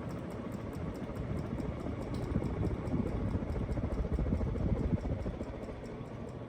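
Restore and Restyle airplane-style ceiling fan running on high speed, its blades pushing a strong stream of air that rumbles on the microphone.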